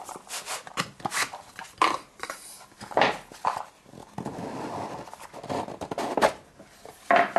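Cardboard packaging being handled and opened: the printed outer sleeve slid off a small rigid gift box and the inner box opened, with rubbing, scraping and small knocks. A few sharper knocks come near the end.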